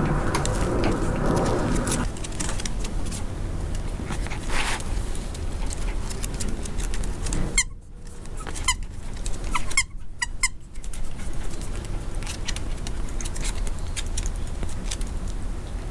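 A toy poodle puppy tussling with a plush toy on a wooden deck: rustling and scuffling, many small clicks and a few short high squeaks, over a steady low rumble. The rustling is heaviest in the first couple of seconds.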